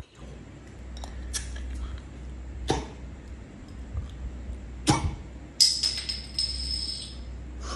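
A man chugging beer from a glass longneck bottle: a few short sharp sounds spread through, the loudest about five seconds in, and a hiss with a thin whistle for about a second and a half soon after.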